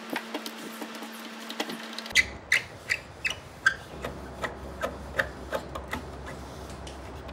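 Hand screwdriver turning a screw in the corner socket of a plastic speaker cabinet: a run of sharp clicks, about three a second, starting about two seconds in. Before that, fainter clicks over a steady hum.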